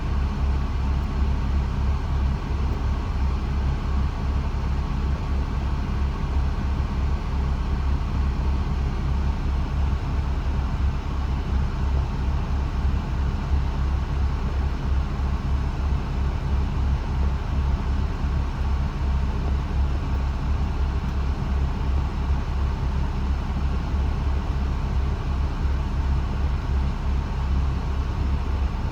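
Mercedes SLK32 AMG's supercharged V6 idling steadily, a low even rumble, with the climate-control fan blowing air through the vents.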